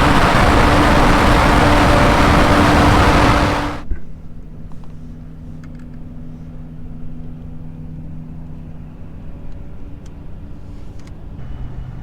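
A loud rushing hiss with a steady hum beneath it for about four seconds, cutting off abruptly, then a farm vehicle's engine running steadily, its hum dropping lower near the end.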